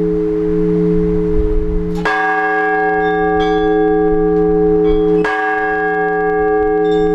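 Large Orthodox church bell struck twice, about three seconds apart. Its deep hum rings on steadily between the strokes. It is ringing to call the faithful to the all-night vigil.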